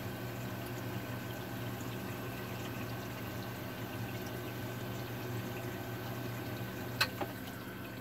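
Saltwater aquarium protein skimmer and sump running: steady bubbling, churning water over a low pump hum. The skimmer's valve is shut, so its collection cup is filling toward the shutoff float switch. A sharp click comes about seven seconds in.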